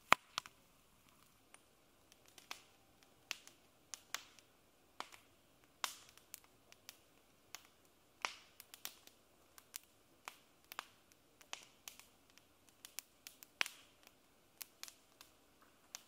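Wood campfire crackling: sharp, irregular pops and snaps, one to three a second, over a faint hiss, with the loudest pop right at the start.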